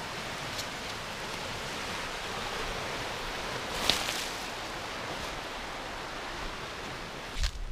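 Steady rush of a river flowing over shallow riffles, with a brief rustle about four seconds in.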